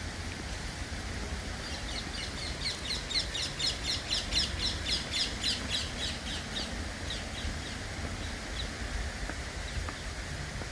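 A bird calling outdoors: a rapid run of short high chirps, about five a second, swelling and then fading away over several seconds, above a steady low rumble.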